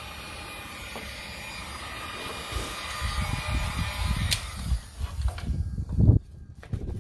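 Electric heat gun blowing a steady hiss as it warms PVC pipe to soften it for bending, shut off a little after four seconds in. Low rumbling knocks build under it, with a sharp thump about six seconds in.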